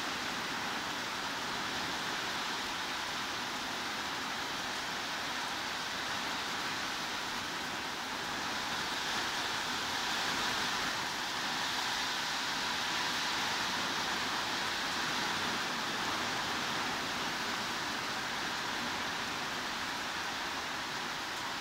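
Heavy rain falling steadily, heard as an even, unbroken hiss with no single drops standing out.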